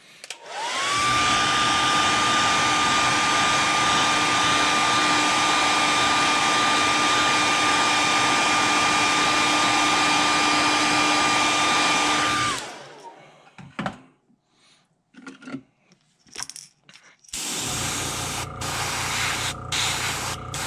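Handheld hair dryer blowing steadily, its motor whine rising as it spins up, drying freshly airbrushed paint on a lure; after about 12 seconds it is switched off. Near the end an airbrush starts spraying, a steady hiss with a hum under it.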